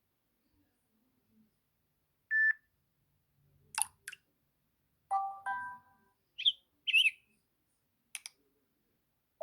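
Samsung Galaxy J5 (2016) ringtone sounds: a sparse run of short electronic tones with silence between them: a single beep about two seconds in, a two-note chime around five seconds, quick bird-like chirps around six and seven seconds, and a few sharp clicks.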